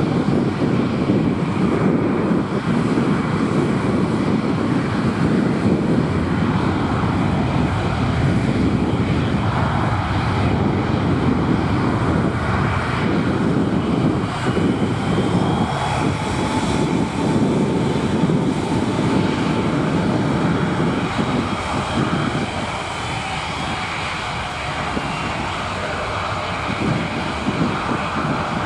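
Jet engines of a three-engined Dassault Falcon business jet running on the runway, a steady loud rushing noise with a faint whine over it, easing off a little about three quarters of the way through.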